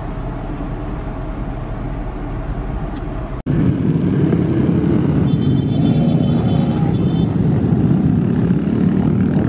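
A steady outdoor traffic hum, then from about three and a half seconds in a large pack of motorcycles, many of them small sport bikes, riding past with engines running in a loud, dense low rumble. A brief high thin tone sounds over it in the middle.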